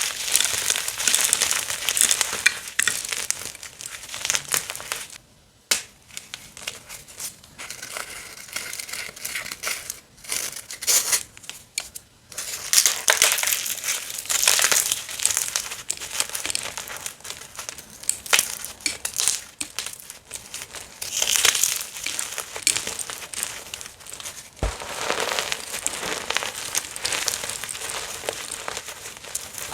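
Gym chalk being crushed and crumbled: a dense, dry, crackly crunching with a few short pauses.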